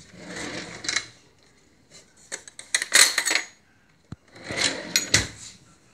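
Metal cutlery clinking and rattling in a wooden drawer tray as it is handled, with a few sharp clacks, in two bouts about a second long each, near the middle and near the end.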